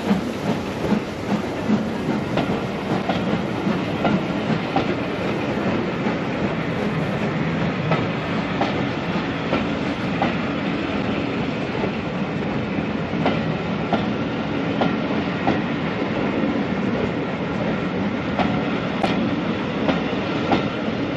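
The Jacobite steam train rolling past, its wheels clicking irregularly over the rail joints over a steady rumble.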